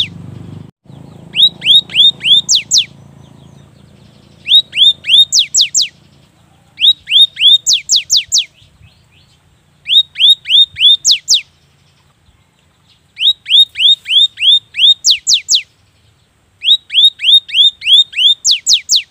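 Cinereous tit (gelatik batu) singing its rapid 'wucit-wucit' song: six bursts of quick, evenly repeated whistled notes, each note sliding down in pitch, with short pauses between the bursts.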